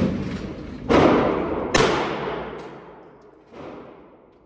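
Staccato XC pistol firing: a shot at the start, then two louder shots about a second and just under two seconds in, each echoing and slowly dying away in the enclosed range. A fainter report follows about three and a half seconds in.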